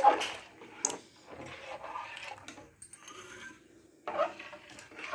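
A spoon stirring a thin rice-paste batter in a cooking pot, with irregular scrapes and knocks against the pot.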